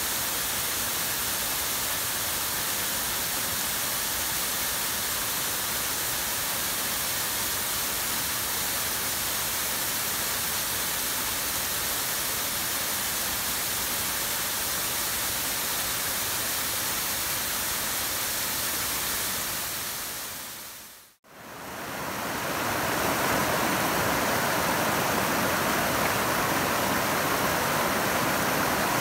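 Steady rushing spray of a waterfall pouring down a mossy cliff. It fades out about two-thirds of the way through, then fades back in as the louder, fuller rush of a glacier-fed river running over a rocky bed.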